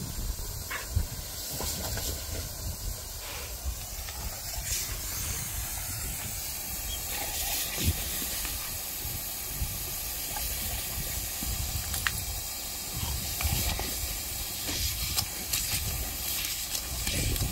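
Lawn sprinkler spraying water with a steady hiss, broken by splashes as a dog bites at the jet. A low rumble runs underneath, with a couple of sharp knocks.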